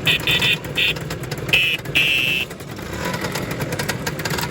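Lambretta two-stroke scooter engines running, with a buzzy electric scooter horn tooting about five short beeps in the first two and a half seconds, the last one the longest.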